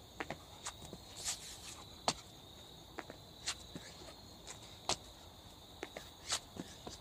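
Crickets trilling steadily, with irregular sharp taps and thumps from a man's hands and feet hitting the ground as he does burpees.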